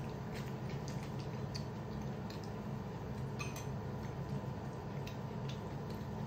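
Eating sounds from people eating rice by hand: faint, scattered clicks and small wet mouth sounds of chewing and fingers in rice, over a steady low hum.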